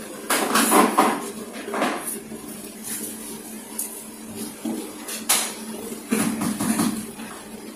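Small tools and parts of a disassembled smartphone clinking and knocking on a work surface: a cluster of clinks in the first second, single knocks around two and five seconds in, and a few more around six seconds.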